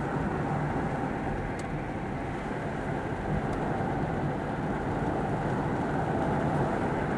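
Steady vehicle rumble and road noise, an even, unchanging drone with no distinct events.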